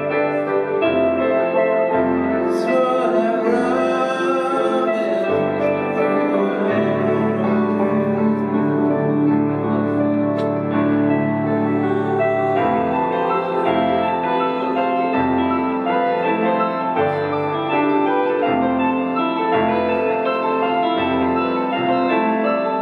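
Live band playing a slow piano-led ballad: sustained piano chords over low bass notes that change every second or two, with a sung vocal line.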